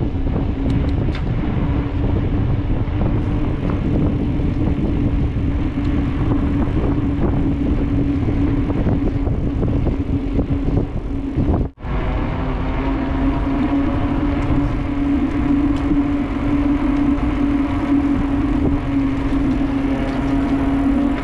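Riding noise from a mountain bike rolling along a paved trail: steady wind rush and tyre rumble with a constant low hum. The sound drops out for a split second about halfway through.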